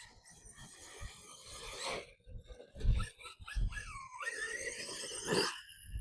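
Losi DBXL-E 2.0's 8S brushless electric drivetrain running: a high whine whose pitch sweeps up and down as the buggy speeds up and slows. Two heavy thumps come about three seconds in.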